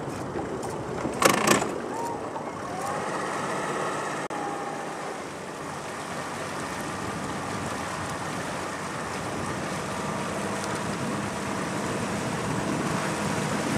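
Steady noise of a fishing boat out on the water, with two sharp knocks just over a second in.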